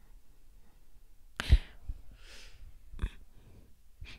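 Quiet handling noises near a microphone: a knock about one and a half seconds in, a soft breath, then two lighter clicks.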